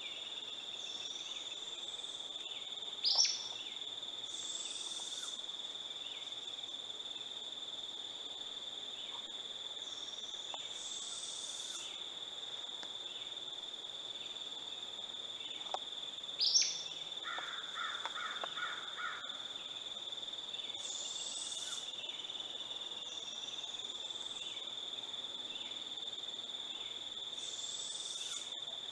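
Young barred owl giving its raspy, rising begging hiss every few seconds, over a steady high insect drone. Two sharp, loud, falling calls from another bird stand out about three seconds in and midway, the second followed by a short rapid run of lower notes.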